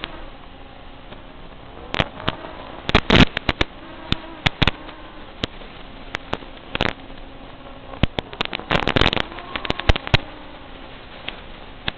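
Static hiss from an analog FPV video receiver, broken by clusters of sharp crackling bursts where the drone's video signal weakens, with a faint buzzing tone underneath.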